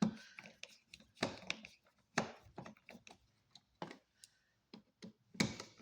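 Irregular clicks, taps and short scrapes of a screwdriver working an electrical outlet's mounting screws into the wall box.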